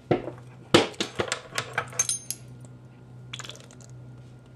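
Metal kitchen utensils clinking and clattering as they are picked up and handled on a wooden counter: a quick run of sharp, ringing clinks in the first couple of seconds, then a softer rustle.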